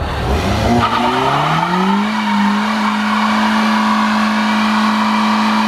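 Car engine revving up over about two seconds and then held at steady high revs during a burnout, the drive wheels spinning on vegetable-oil-soaked tyres with a squealing hiss.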